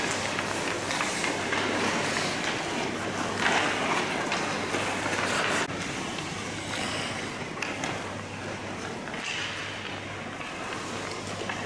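Ice skate blades scraping and hissing on rink ice in several swells, over a steady low hum. The noise drops suddenly a little under six seconds in.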